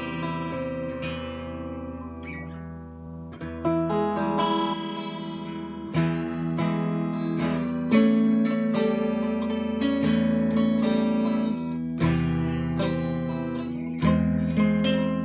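Solid-body electric 12-string guitar, played on its bridge and middle pickups together, strumming chords. A new chord is struck every second or two and left to ring, with a tone the player calls bassier and less bright.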